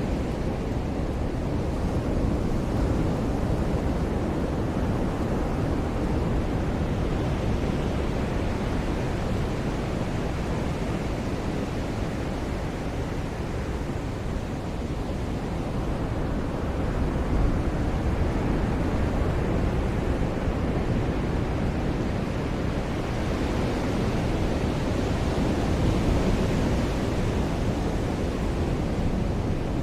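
Ocean surf: a steady wash of waves breaking and rolling on a beach, swelling a little louder about halfway through and again near the end.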